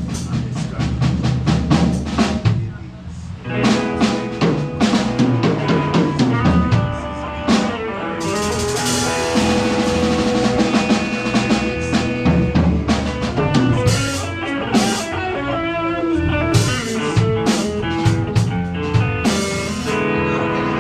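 Live band playing: drum kit with rimshots and bass drum under guitar, with a brief drop about three seconds in before the band comes back in.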